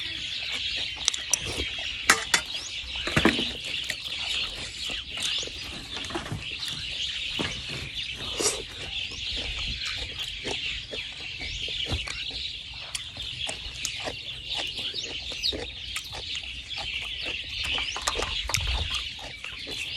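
Steady high chirping of birds, chickens among them, with scattered light clicks of a spoon and fingers against a metal tray.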